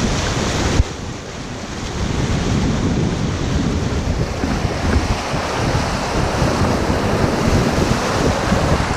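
Rushing whitewater on a river, with wind buffeting the microphone. The sound drops abruptly just under a second in, then builds back up.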